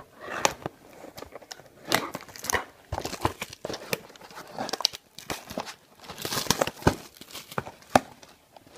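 Packaging of a retail blaster box of trading cards being torn open by hand: irregular crinkling, rustling and tearing, with louder bursts about two seconds in and again near the six-second mark.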